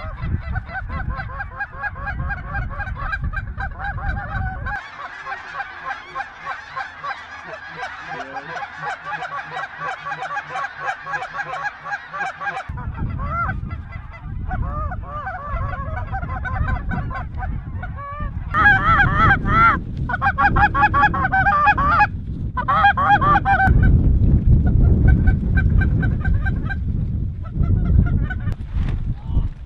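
A large flock of snow geese calling overhead: a constant din of many overlapping high-pitched honks, growing louder in the second half, with a low rumble underneath for much of it.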